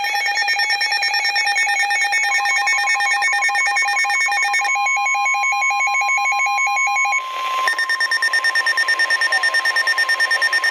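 NOAA Weather Radio emergency alert sounding: fast, even electronic beeping with warbling data tones, joined about two seconds in by the steady single-pitch weather alert tone that signals a warning. A short burst of static comes about seven seconds in, after which rapid pulsing alarm beeps continue over the tone.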